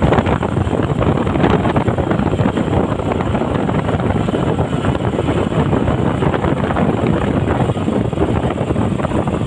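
Steady wind noise buffeting the microphone over the running noise of a moving vehicle.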